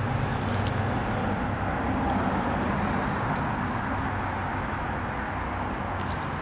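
Steady low mechanical hum over a wash of background noise, with a few faint clicks about half a second in.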